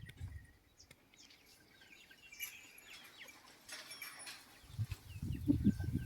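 Small birds chirping now and then in the background. Near the end comes a louder stretch of low thumping and rumbling.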